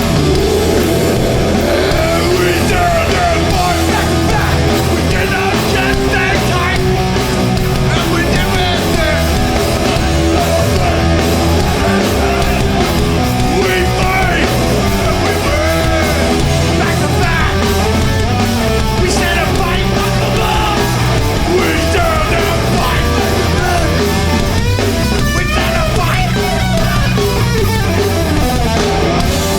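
Hardcore punk band playing live at full volume: distorted electric guitars, bass and drum kit.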